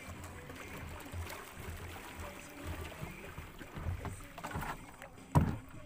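Nylon gill net being hauled by hand into a wooden boat: the mesh rustling and water splashing around the hull, with small knocks against the boat. A single sharp knock on the boat near the end is the loudest sound.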